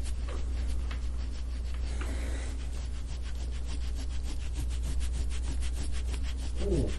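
A metal soft-tissue scraping tool is drawn over oiled skin on the lower back in quick, rhythmic strokes, making a fast, even scraping. This is instrument-assisted soft-tissue work, gua sha-style, on a tight knot in the back muscles.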